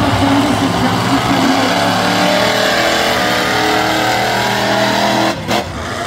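Monster truck engines running loud, with the pitch climbing as a truck revs and accelerates across the dirt. The sound briefly drops out near the end.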